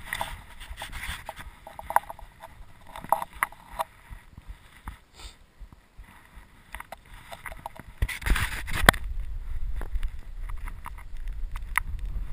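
Mountain bike rolling down a gravel trail: chain and frame rattling, with many sharp clicks and knocks as the tyres hit stones. About eight seconds in come two hard knocks, followed by a louder steady low rumble.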